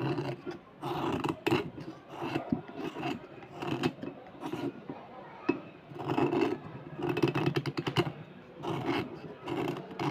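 A steel knife blade scraping along a slate pencil, shaving it to powder in short repeated strokes, about one or two a second.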